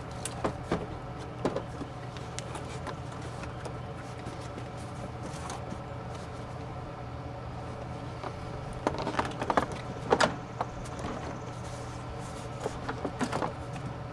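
Plastic interior door trim panel being handled and set against the door, giving scattered light clicks and knocks, most of them in a cluster about nine to ten seconds in.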